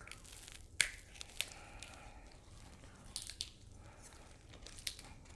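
Grilled king crab leg shells cracking and snapping as they are broken open by hand: a handful of faint, sharp cracks spread out, the strongest about a second in.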